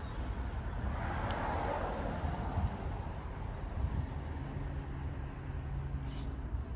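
Garage door opener motor driving a custom sliding garage door, a steady low hum that sets in about four seconds in over a low rumble.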